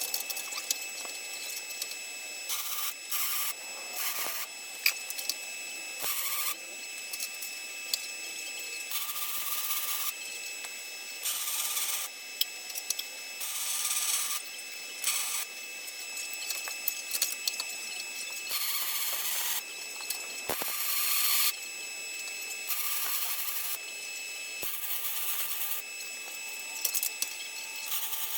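Electric arc welding in short bursts, about half a second to two seconds each, with a steady whine between them: the replacement crossmember being welded into the truck frame.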